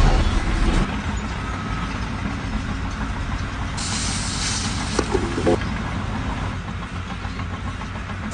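A vehicle engine running steadily with a low rumble, and a burst of hissing from about four seconds in that lasts a second and a half.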